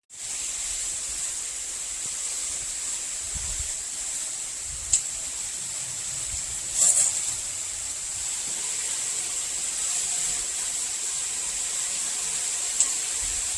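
Steady hiss of water spraying from a handheld shower head, with a few brief clicks or splashes.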